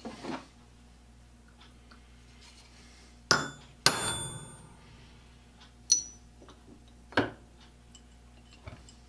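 Four hammer blows on a steel punch held against a block of railroad iron, each a sharp metallic strike with a brief ring. The second blow is the loudest and rings longest. A lighter clink of steel tools sounds right at the start.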